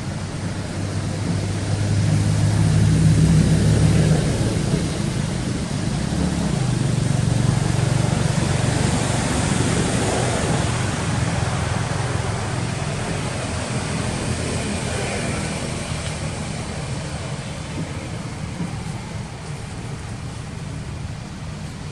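A motor engine running, with a steady low hum that swells over the first few seconds, swells again near the middle and then slowly fades, over a constant noisy background.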